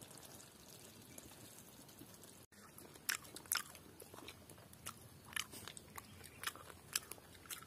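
Someone chewing and crunching food close by: irregular short crisp crunches, several in quick succession, starting about three seconds in after a faint hiss and a brief dropout.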